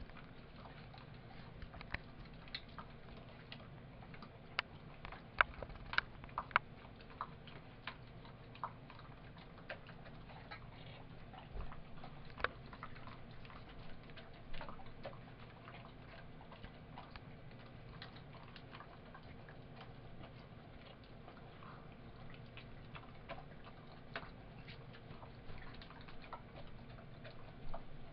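Greyhound eating from a metal food bowl: irregular sharp clicks and ticks of food and teeth against the bowl, busiest in the first half and sparser later.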